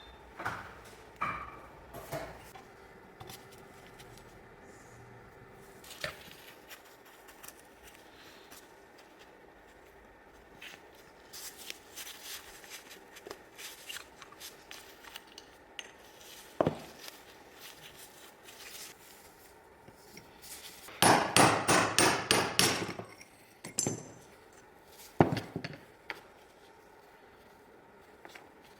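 Hand tools working on a steering rack: scattered metal clicks and knocks, a quick run of hammer-like strikes about three quarters of the way through, and one sharp knock shortly after.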